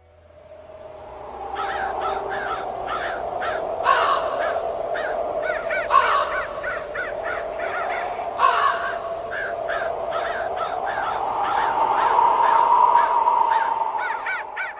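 A flock of crows cawing over and over, about three calls a second with a few louder ones, above a steady drone that swells near the end. It fades in over the first second or two.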